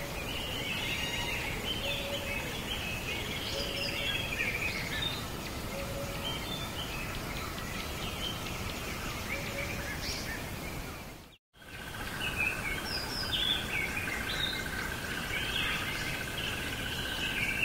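Birds chirping and singing against a steady background hiss. The sound cuts out completely for a moment about two-thirds of the way through. After that a steady high hum runs under the birdsong.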